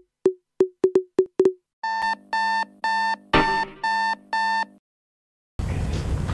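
Short electronic music sting: six quick clicky notes, then six short synthesized beeping chords about half a second apart with a noisy hit among them; it stops just before five seconds in. After a short silence, steady room noise begins.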